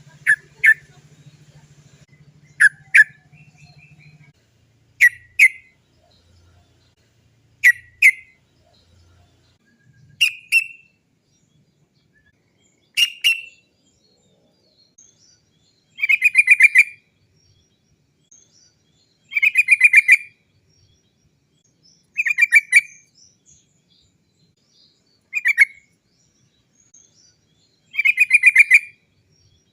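Yellow-vented bulbul (trucukan) calling its "cok cok cok" song, with a phrase every two to three seconds. The first phrases are short paired notes; from about halfway they become rapid rolling chatters about a second long.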